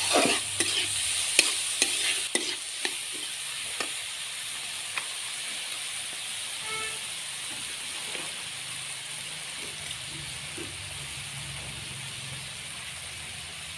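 Red lentils (masoor dal) frying in oil in a metal kadai, sizzling steadily, with a metal spatula scraping and stirring against the pan, the strokes coming thick in the first few seconds and only now and then after that.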